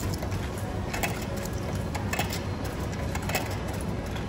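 Coins being fed one at a time into a Tao Bin drinks vending machine's coin slot, each clicking as it drops through the coin acceptor: a series of sharp clicks about every half second over a steady low hum.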